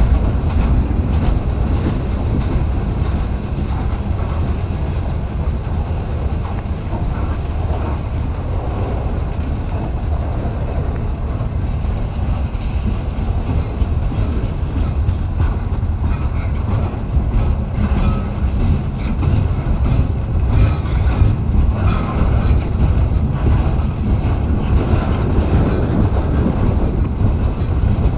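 Freight train passing close by, its cars rolling on the rails in a steady heavy rumble, with wheels clacking over the track here and there.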